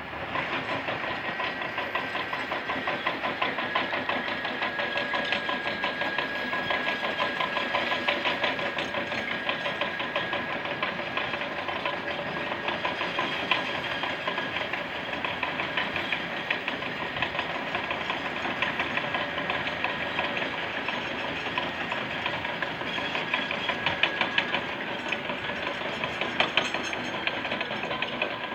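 Bulldozer at work: its diesel engine running steadily under a fast, continuous metallic clatter from the steel tracks.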